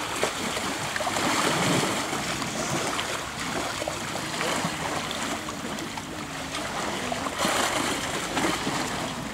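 Shallow river water sloshing and splashing around an elephant as it stirs the water with its trunk. Faint voices murmur in the middle.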